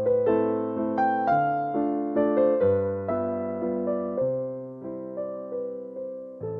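Soft piano music with an electric-piano tone: gentle repeated notes over slowly changing bass notes.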